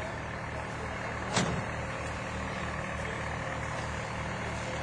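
Crane's engine running steadily with a regular low throb. A single sharp knock comes about a second and a half in.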